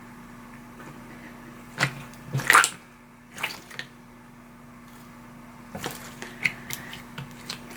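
Thick, glossy Elmer's Gue slime being squeezed and poked by hand, giving short wet squelches and pops: a few about two to four seconds in, the loudest near two and a half seconds, then a run of smaller clicks near the end.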